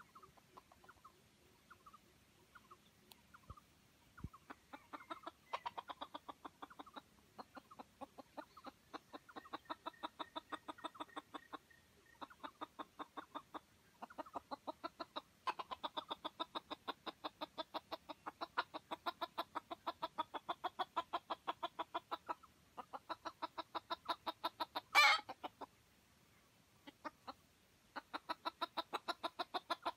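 Junglefowl rooster clucking in long runs of short rapid notes, several a second, with one short, loud, harsh note about 25 seconds in.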